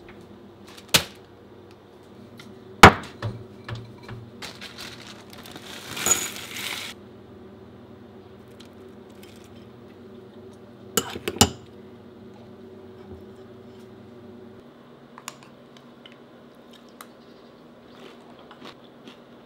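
Kitchen tableware sounds: a few sharp knocks of things set down on a stone countertop, a pour lasting about two seconds, then a spoon clinking against a ceramic bowl. A faint low hum runs underneath and stops about three-quarters of the way through.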